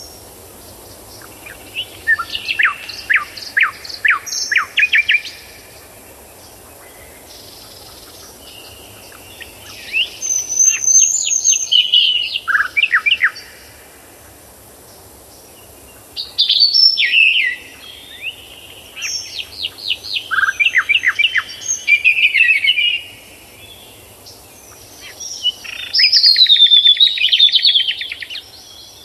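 A songbird singing in repeated phrases of quick, sharply falling notes and trills, about five phrases with pauses of a few seconds between them; the last phrase ends in a fast, even trill.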